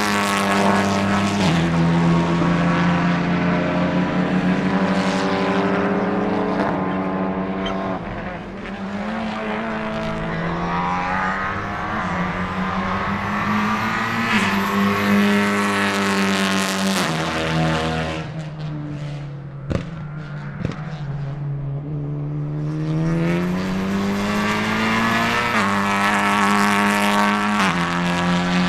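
Honda Civic Type R FL5 TCR race cars' 2.0-litre turbocharged four-cylinder engines running hard past the trackside, the pitch climbing under acceleration and dropping in steps at each sequential-gearbox upshift. A couple of sharp cracks come about two-thirds of the way through.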